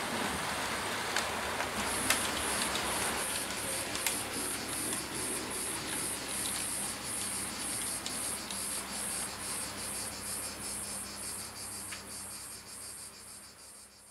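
HO-scale model freight train rolling over the track behind a Hornby Jouef 141 TA steam tank locomotive: a steady rushing clatter of wheels with a few sharp clicks at rail joints, and a high whine from the locomotive's motor pulsing about two to three times a second. It fades away over the last few seconds.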